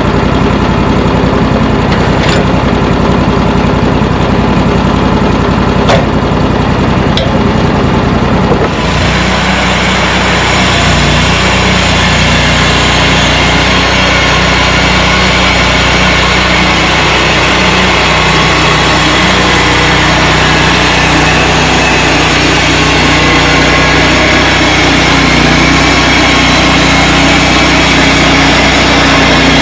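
Engine of a Mechmaxx 36 bandsaw sawmill running, with a few sharp clicks. About nine seconds in the sound changes to a steady, hissier run, as the band blade cuts through a log.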